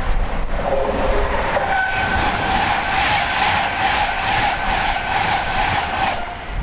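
A train passing at speed on a main line, wheels clattering in a regular beat of about three a second over the rail, with a steady whine above. Wind buffets the microphone throughout.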